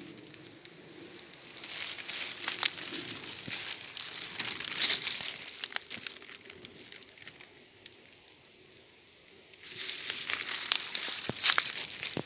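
Footsteps rustling and crackling through dry leaves and brush, with sharp snaps. It is quieter for a few seconds in the middle and busier again near the end.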